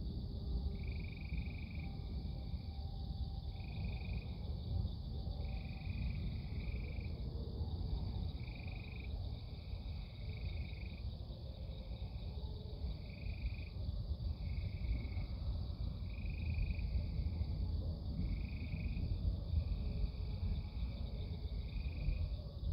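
A frog calling over and over, short trills about every second and a half, over a steady high-pitched drone and a constant low rumble.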